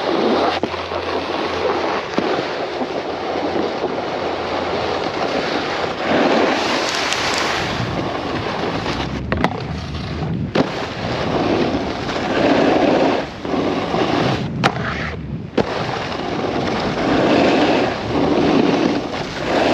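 Snowboard base and edges scraping over packed snow, with wind rushing over a helmet-mounted action camera's microphone. The noise swells through each turn and eases between them, with a couple of sharp knocks.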